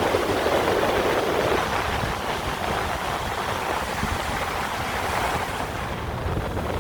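Sea waves washing onto the shore, a steady rushing wash that eases off through the middle and swells again near the end.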